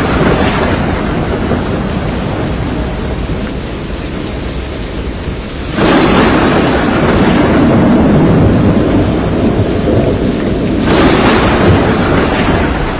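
Thunderstorm with heavy rain and thunder: sudden cracks about six seconds in and again near eleven seconds, each rumbling away slowly over a steady rush of rain.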